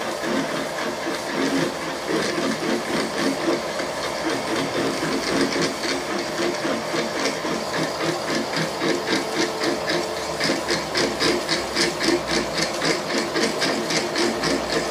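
Milling machine drilling through a metal pump housing with a 12 mm carbide drill, fed slowly by the table: a steady spindle hum with a regular cutting chatter of about four pulses a second that grows stronger from about five seconds in.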